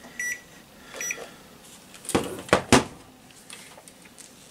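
Digital clamp meter beeping briefly twice as its rotary dial is switched, the first beep near the start and the second about a second in. About two seconds in come three sharp knocks from the meter being handled and set down, louder than the beeps.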